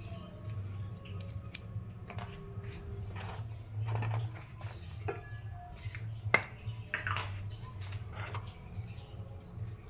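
Light clicks and clacks of a WE Glock 34 gas blowback airsoft pistol and its gas magazine being handled and set down in a pulp-lined cardboard box, with one sharper click about six seconds in, over a low steady hum.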